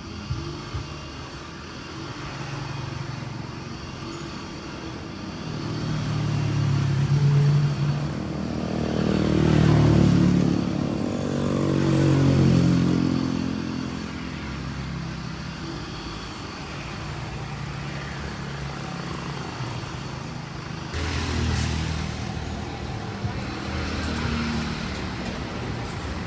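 Chery QQ car engine idling, revved up and let back down about three times in a row, then settling to a steady idle.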